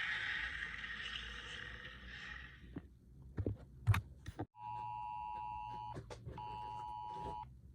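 A loud rushing noise dies away over the first three seconds, followed by two sharp clicks. Then, from about four and a half seconds in, an electronic two-tone alert signal beeps in on-off bursts about a second long, each with a short gap: the attention tone of a mock emergency alert broadcast.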